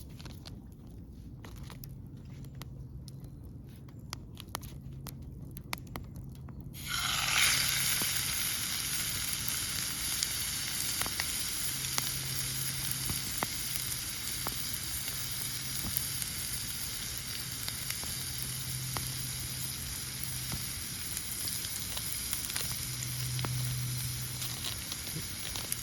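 Beef steak sizzling loudly on a hot cooking surface over a wood fire, the sizzle starting suddenly about seven seconds in as the meat goes on and then holding steady. Before that only scattered light clicks and crackles are heard.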